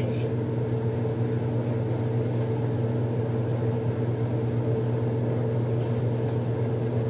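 Steady electric hum of a kitchen appliance motor running, a constant low drone with a few fixed tones.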